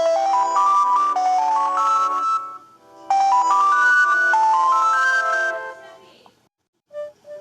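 Samsung Galaxy J2 (Viper OS ROM) alarm tone: a short chiming melody of notes stepping upward over held chords, played twice and then fading. A different tone's short notes begin just before the end.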